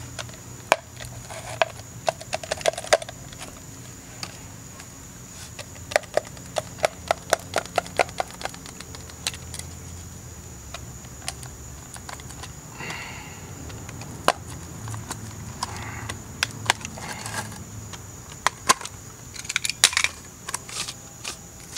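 Irregular sharp clicks and cracks as the dust cover of an old rear shock absorber is cut off by hand. There is a quick run of them about six to eight seconds in and another cluster near the end.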